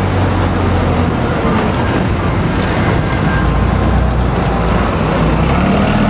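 Diesel engine of a single-decker city bus pulling away and driving past: a steady low drone whose pitch drops about a second and a half in and rises again near the end.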